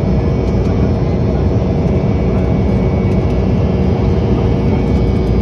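Steady roar of a jet airliner in flight heard from inside the passenger cabin: engine and airflow noise, with a faint steady high whine above it.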